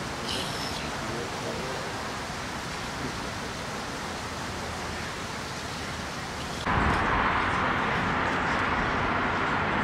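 Steady hiss-like background noise with no clear tones, which jumps suddenly louder about seven seconds in and holds there.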